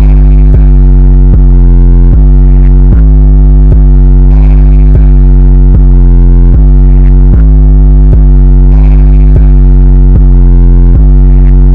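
Very loud, heavily bass-boosted electronic music: a distorted synth pattern over a heavy, steady deep bass, with a new note about every three-quarters of a second.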